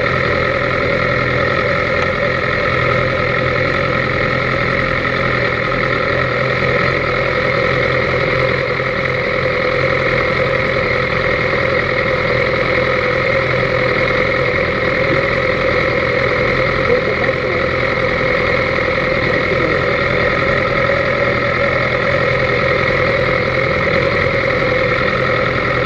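BMW S1000RR's inline-four engine idling steadily, heard close up from a camera mounted on the bike, with no revving.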